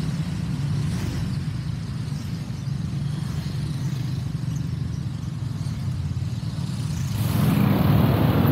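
Honda PCX 150 scooter's single-cylinder engine running at low road speed, a steady low hum. About seven seconds in, a louder rush of noise comes in over it.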